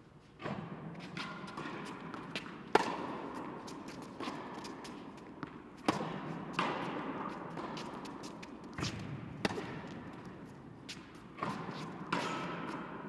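Tennis rally on an indoor hard court: sharp racket strikes and ball bounces every one to three seconds, each ringing out in the long echo of the big hall.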